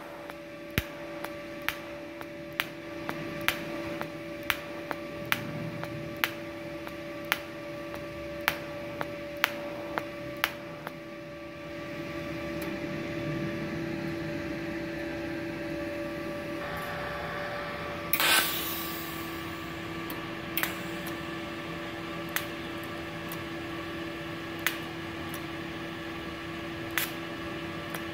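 DC TIG welder arc-welding thin stainless sheet on argon: a steady electrical hum with sharp ticks every half second to a second for the first ten seconds or so, a louder burst about 18 seconds in, then occasional ticks.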